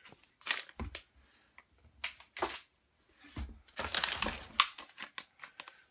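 Plastic retail bags crinkling and small packaged items being rummaged through in a cardboard box: irregular rustling with a few sharp clicks and knocks, busiest from about three and a half to four and a half seconds in.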